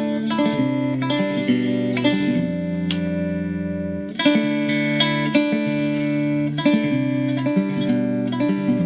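Mexican-made Fender Stratocaster electric guitar in drop D tuning, freshly set up, played as a series of picked notes and chords. A low note is held for about a second and a half partway through.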